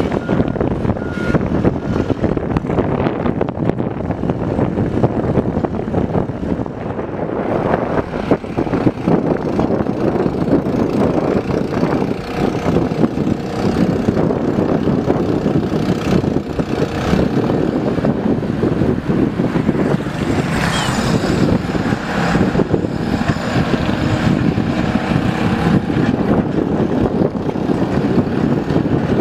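Mini excavator's diesel engine running steadily under work, with scattered knocks and clanks. A few short high beeps, like a travel alarm, sound in the first second or two.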